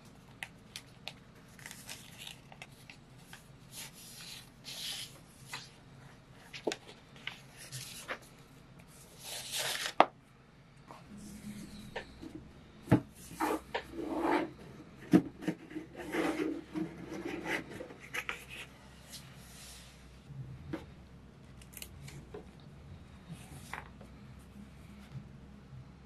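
Paper pages and clear plastic sleeves of a binder being handled and leafed through: rustling with soft clicks and taps. There is a louder rustle about ten seconds in, and a few sharp knocks in the middle as the binder cover is closed.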